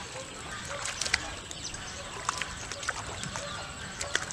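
A hooked fish splashing and thrashing at the water's surface, heard as scattered short splashes and clicks over a steady outdoor background, loudest about a second in and again near the end.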